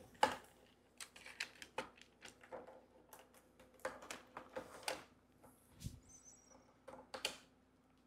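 Plastic magnetic building tiles clicking as they snap together and are set down and shifted on a wooden table: scattered, irregular light clicks and taps, one louder click near the start.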